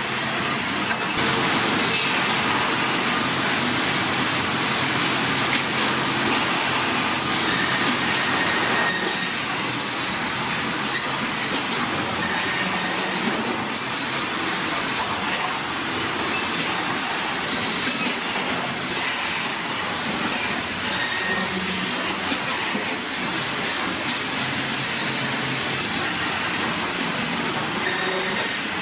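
Sawmill production line running: a steady, dense mechanical clatter and hiss with faint metallic squeals from conveyors and saws handling boards.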